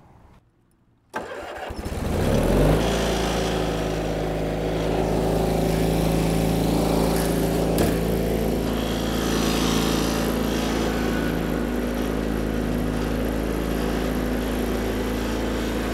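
Kohler Magnum 18 engine on a Cub Cadet riding mower, cranked by its electric starter for about a second and a half, then catching and running steadily. Its fuel is fed by a 12-volt electric fuel pump fitted in place of the failed mechanical pump.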